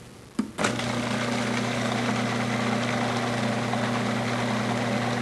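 Electric food processor switched on with a click about half a second in, then its motor running steadily, chopping together the garlic, shallots, capers, anchovy and olives of an aioli base.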